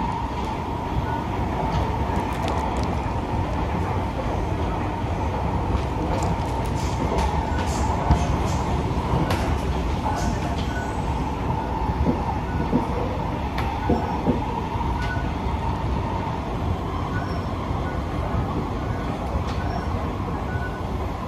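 Interior noise of a Kawasaki C151B MRT train in motion: a steady rumble from the wheels and running gear, a high whine, and scattered light clicks. The whine fades in the second half as the train slows to stop at the station.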